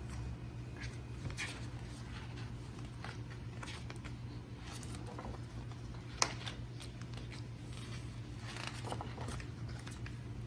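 Paper and packaging rustling and clicking as the items of a DVD box set are handled, with one sharp click about six seconds in, over a steady low hum.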